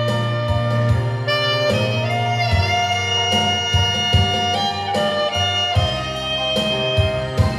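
Saxophone playing a melody of long held notes over a band backing of bass, guitar and drums.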